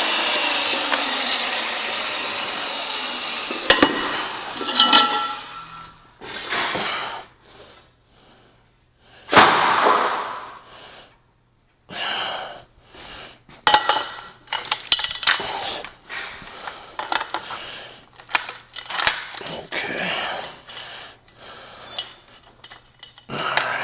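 A power tool's motor running and winding down, its pitch falling, over the first few seconds. Then come irregular sharp metal clanks and clinks as the pipe and tools are handled.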